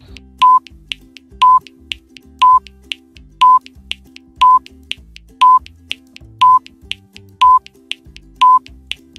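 Countdown timer sound effect: a short, loud, high beep once a second, nine times, with faint ticks between the beeps, over quiet background music.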